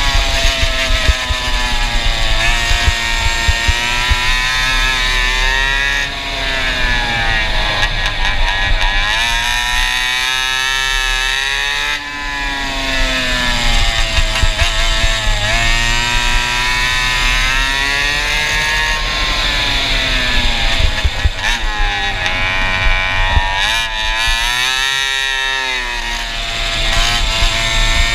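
Go-kart engine with a Stinger exhaust running under load, its pitch climbing as it revs out along the straights and dropping as the kart slows for corners, several times over.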